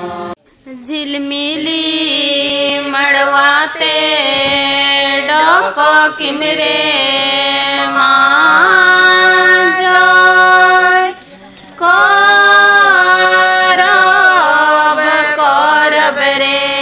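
A woman singing a slow melody loudly, holding long notes that slide from one pitch to the next, with a brief pause about eleven seconds in.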